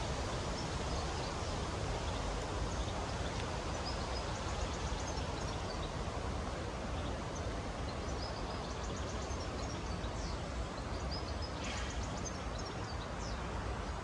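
Steady outdoor background noise, with small birds chirping on and off throughout.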